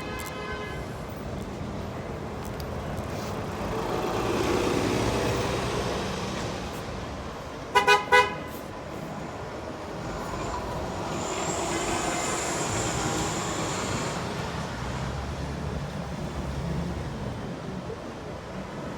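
Road traffic passing in two swells, with a vehicle horn tooting three times in quick succession about eight seconds in.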